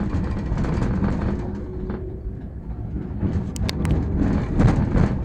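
Tram running along the track: a steady low rumble of wheels on rails, with a few sharp clicks about three and a half seconds in.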